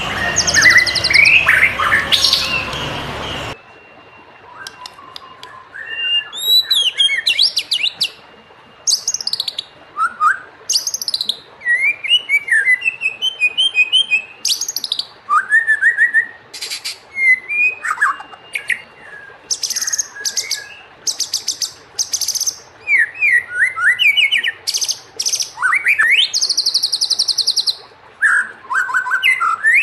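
White-rumped shama (murai batu) singing a varied song of short whistled phrases, rising and falling notes and fast high trills, with brief pauses between phrases. For the first few seconds the song sits over a loud hiss, which cuts off suddenly, leaving the singing clear.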